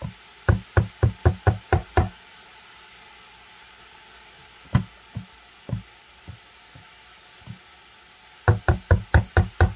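Two quick runs of sharp knocks, about five a second, from a kitchen utensil striking a hard surface, with a few scattered single knocks between.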